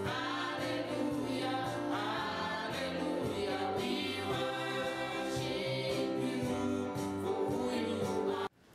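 Recorded worship song: a choir singing over instrumental accompaniment. It cuts off suddenly near the end.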